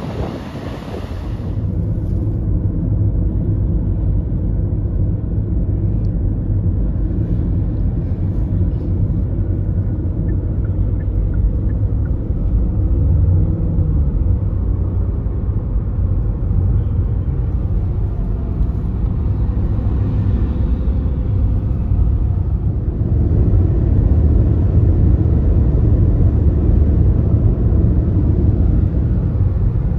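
About a second of surf and wind noise, then a cut to a steady low rumble of road, tyre and engine noise inside a car's cabin at highway speed, swelling slightly louder in the last part.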